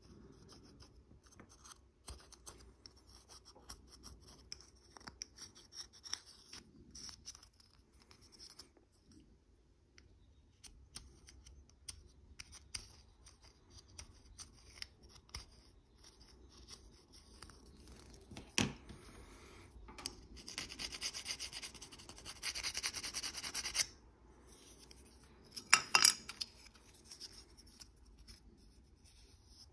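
Hobby knife blade scraping moulding flash off the edges of a plastic model kit part: a run of light, short scrapes, then a few seconds of steady scraping past the middle. A couple of sharp clacks follow a little later.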